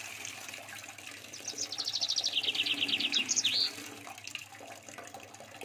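A small bird's rapid trill of quick repeated high chirps, stepping down in pitch partway and ending in a short upward note, over faint scissors cutting through card.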